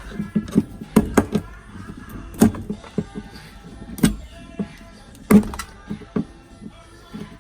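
Irregular sharp knocks and taps, a few each second and unevenly spaced, the loudest about a second in, near 2.5 and 4 seconds, and about 5.4 seconds in, over faint background music.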